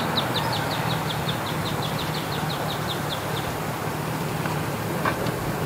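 A bird calling a rapid run of short, high chirps, about five a second, stopping after about three and a half seconds, over steady wind noise.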